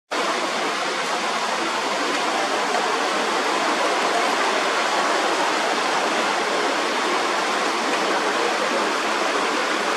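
Shallow river water rushing steadily over a rocky bed.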